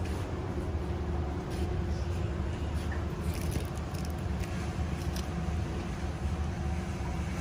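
Steady low rumble of a large store's background noise with a faint steady hum, and a few light clicks about halfway through.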